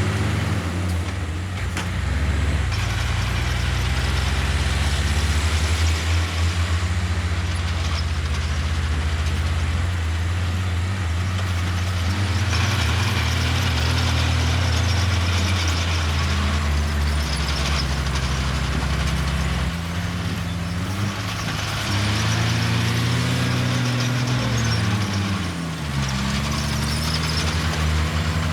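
Heavy diesel engine of earthmoving machinery running hard and steadily, its pitch dipping and climbing back several times in the second half as the load changes.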